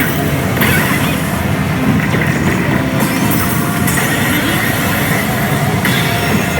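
Steady, loud din of a pachinko and pachislot parlour: many machines clattering and playing their electronic sound effects at once, with the sounds shifting every second or two.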